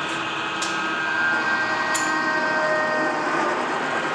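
Lodge & Shipley 21 x 98 engine lathe's geared headstock running up to its top spindle speed of 500 RPM. It is a steady mechanical hum with several gear-whine tones that grow louder about a second in, and a sharp click about two seconds in. The headstock runs quiet, a sign of a sound gear train.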